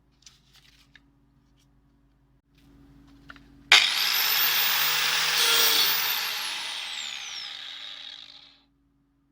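Angle grinder switched on with a sudden loud start and a high whine that climbs and holds for about two seconds. It is then switched off, its whine falling as the disc winds down over the next two to three seconds. A few faint clicks come before it starts.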